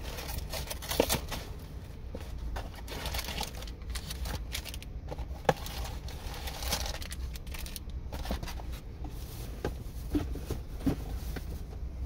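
Plastic wrapper of a soft-baked snack bar being crinkled and torn open by hand: irregular crackling and rustling with sharp little clicks, over a steady low hum.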